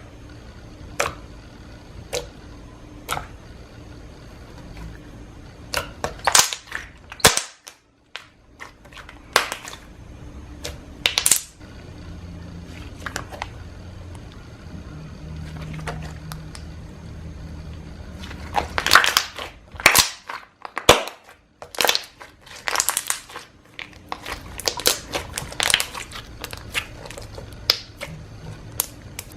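Slime being handled, giving sharp popping clicks as air pockets in it burst: a few single pops spaced about a second apart at first, then quick clusters of pops.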